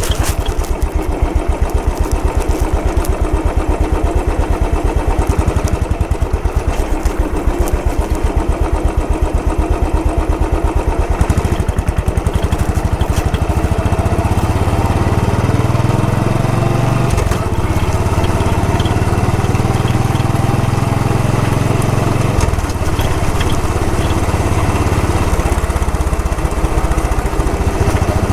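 Royal Enfield Bullet 500's single-cylinder engine idling with an even, rapid thump. About halfway through it pulls away and runs under load, with two short breaks for gear changes.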